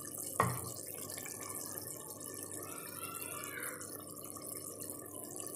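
Beef karahi simmering in a pot on a gas stove: a steady low bubbling hiss, with a single short knock about half a second in.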